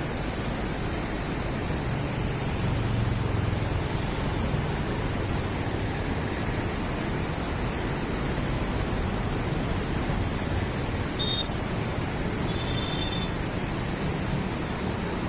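Steady rushing noise, with a faint low hum a couple of seconds in and two short high chirps near the end.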